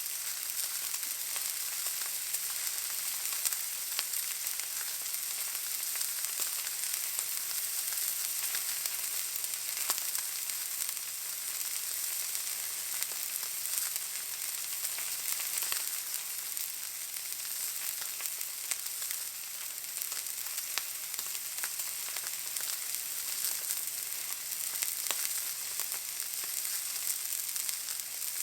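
Steak searing in a hot pan: a steady sizzle with frequent small crackles and pops from the spitting fat.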